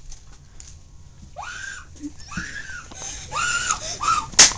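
A person screeching in short, high, parrot-like squawks, four in a row about a second apart beginning about a second and a half in, each rising and then dropping in pitch. A sharp knock comes near the end.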